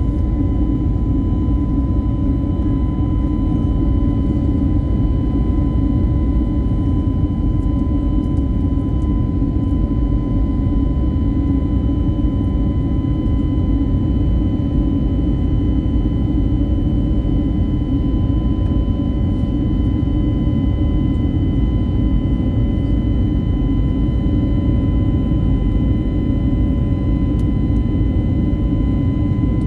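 Airbus A321neo's CFM LEAP-1A turbofan engines running at climb power after takeoff, heard inside the cabin as a loud, steady roar with a steady high whine above it.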